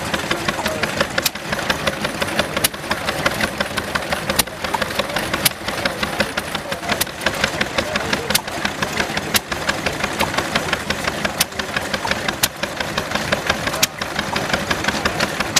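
Small vertical stationary engine of a vintage lighting set, running steadily and turning its dynamo with a fast, even clatter; a sharper click stands out roughly every second or so.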